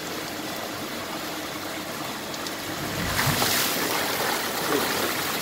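Water rushing inside a rainwater filter, louder and hissier from about three seconds in as its unscrewed bottom housing comes off and water gushes out over the mesh filter screen and splashes down. This is a closed-type filter being opened for manual cleaning.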